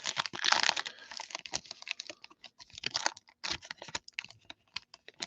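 Quick, irregular clicks and short rustles of trading cards being handled, flipped and sleeved.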